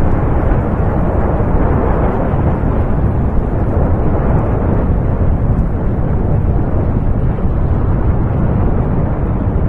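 Steady, deep rumble of an erupting volcano, with no separate blasts.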